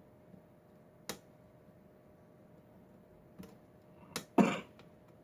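Metal lock-picking tools working in a Schlage pin-tumbler lock: a few sharp, separate clicks, then a louder metallic rattle lasting about half a second near the end.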